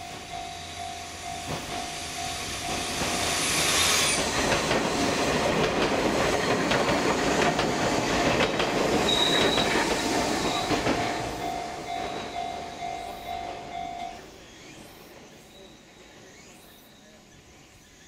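Japanese level-crossing warning bell ringing steadily while an Enoshima Electric Railway (Enoden) train passes close by, its wheels clattering, with a brief high wheel squeal about nine seconds in. The bell stops about fourteen seconds in as the crossing clears.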